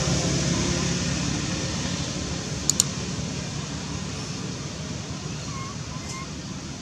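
Low, steady engine drone of a passing vehicle, slowly fading away, with two sharp clicks in quick succession about two and a half seconds in.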